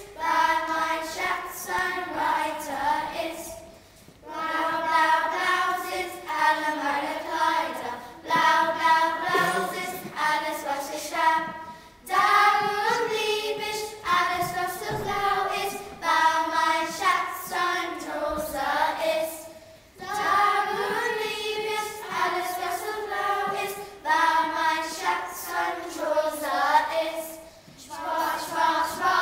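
A children's choir singing, in phrases of about four seconds with brief pauses for breath between them.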